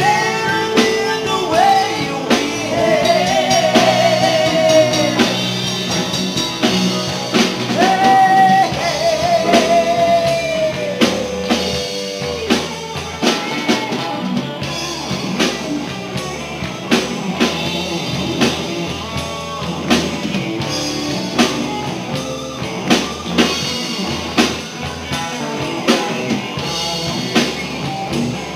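Live rock band playing: electric guitars, bass guitar and drum kit under a sung lead vocal, with the vocal dropping out about halfway through while the band plays on with a steady drum beat.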